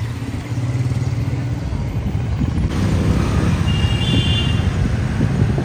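Busy street traffic: motorcycles and cars passing close by, their engines running with a steady low rumble.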